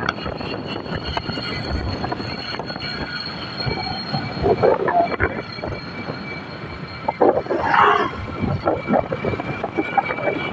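Steady noise of a moving vehicle on the road, with brief louder bursts about halfway and again about three-quarters of the way through.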